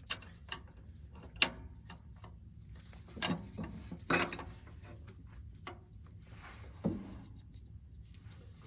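Open-end wrenches being handled on a hydraulic hose fitting: scattered metallic clicks and clanks, the sharpest about a second and a half in, with a few duller knocks in the middle.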